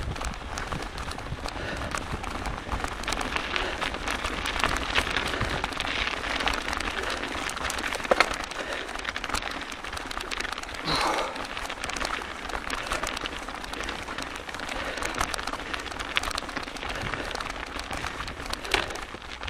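Mountain bike moving fast along a snowy forest trail: a steady crackling rush of tyre noise and wind on the microphone, scattered with small rattles and knocks. The loudest is a single sharp knock about eight seconds in.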